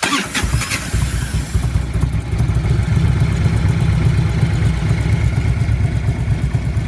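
A 1994 Harley-Davidson Electra Glide Ultra Classic's Evolution V-twin catching on a hot start, fired from a remote starter button wired to the starter solenoid. It runs rough for the first couple of seconds, then settles into a steady, pulsing idle.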